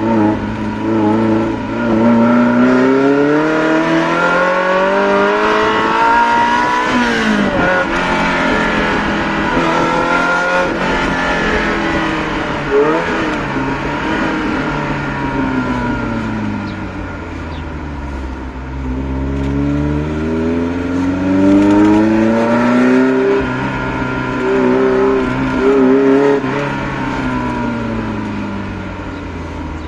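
Ferrari Mondial 3.2's V8 with a custom exhaust, heard from inside the cabin, revving up under acceleration. The pitch climbs for several seconds, falls suddenly about seven seconds in, then sinks slowly. It climbs again in the second half, with another sudden drop, and eases off near the end.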